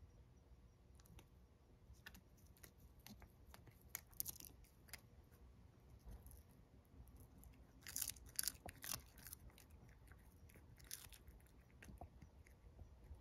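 Domestic cat chewing and crunching a large dried sardine (niboshi): faint, irregular crunches, bunched in brief flurries about four, eight and eleven seconds in.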